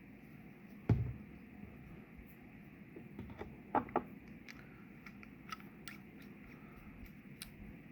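Small-parts handling at a workbench: a dull knock about a second in, then a quick pair of sharp clicks near the middle and scattered light ticks, as small stainless quick-connect fittings and a threadlock bottle are handled.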